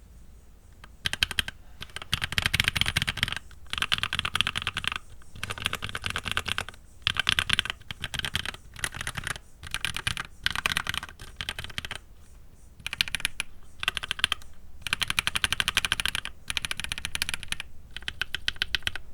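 Typing on a mechanical keyboard with Gateron linear switches sitting on a desk mat: rapid runs of keystroke clacks in bursts, with short pauses between them.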